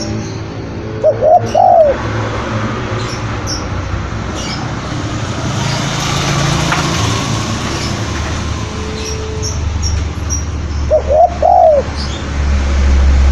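Spotted dove cooing: two short phrases of rising-and-falling coos, one about a second in and another about eleven seconds in. Behind them is a steady noisy background with faint high chirps of small birds.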